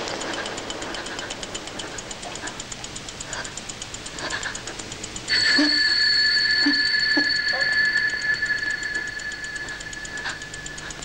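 Horror-film soundtrack: a fast, steady ticking, joined about five seconds in by a sudden loud, sustained high tone that holds for about five seconds, with a few short low notes beneath it.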